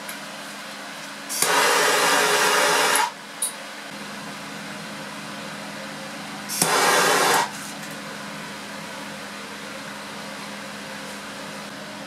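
Gas torch flame hissing in two bursts, the first about a second and a half long, the second under a second, as the generator flask is heated to speed up carbon monoxide production. A steady fume hood fan hum runs underneath.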